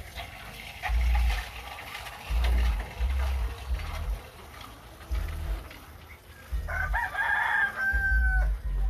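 A rooster crows once near the end, one drawn-out crow that trails off on a held note. Low rumbling thumps come and go throughout and are louder than the crow.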